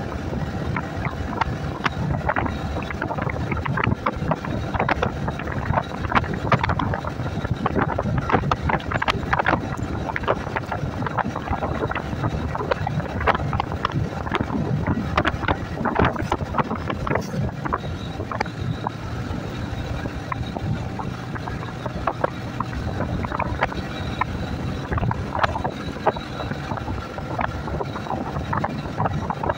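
Wind buffeting the microphone of a moving Yamaha motorcycle in irregular gusts, over the steady running of the bike and road noise.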